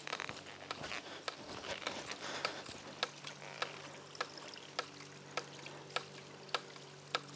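Half-inch hydraulic ram pump's waste valve clacking shut in a steady rhythm, about five sharp clacks every three seconds, over faintly trickling water. The pump is cycling a little fast, which calls for a longer drive pipe to slow it.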